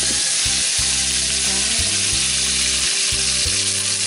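Chunks of pork leg sizzling steadily as they are stir-fried in a stainless steel pot and turned with chopsticks, seared until firm before the water goes in.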